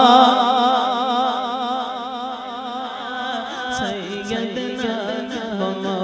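Male naat reciter singing unaccompanied into a microphone: long, ornamented held notes with a wavering pitch over a steady low drone. The voice is loudest at the start and eases off after about two seconds.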